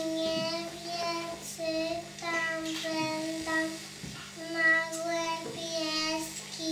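A young girl singing into a microphone, holding each note in short phrases of about a second with brief breaks between them.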